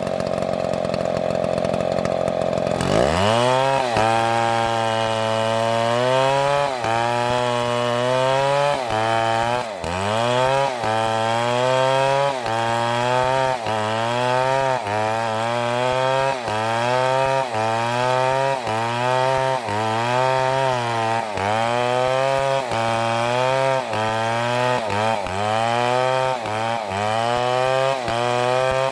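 Chainsaw engine running at a steady high speed. About three seconds in, its pitch drops sharply, and from then on the engine rhythmically slows and speeds up again roughly once a second as it cuts into wood.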